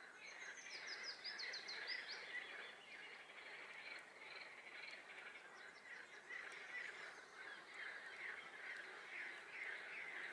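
A dense, continuous chorus of frogs calling from a swamp. A songbird sings a quick run of about ten high notes over it in the first two seconds.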